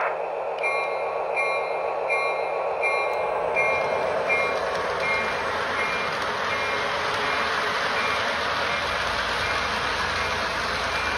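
Lionel LionChief RS-3 diesel model locomotive running laps with its freight cars, a steady rumble of motor and wheels on the rails. Over it the locomotive's electronic sound system rings its bell, an even ding about every three-quarters of a second that grows fainter in the second half.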